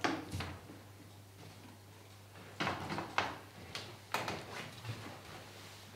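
Old wooden trunk being opened from inside and climbed out of: a sharp wooden knock as the lid is pushed up, then a string of short knocks and bumps against the chest about two and a half seconds in.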